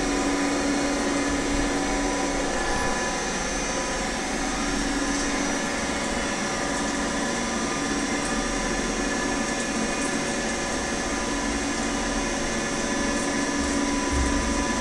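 Vertical machining centre running a program dry, in the air above the workpiece: a steady machine whir and hum with no cutting. A tone in the hum fades for a couple of seconds about three seconds in, then returns.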